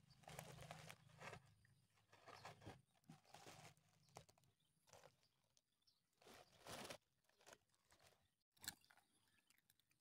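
Faint, irregular crunching and rustling: cats chewing food scattered in the grass and moving through it.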